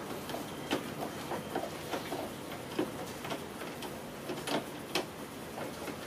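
Irregular clicks and short creaks of a screw being turned in by hand with a screwdriver, driven straight into the wardrobe panel without a pilot hole.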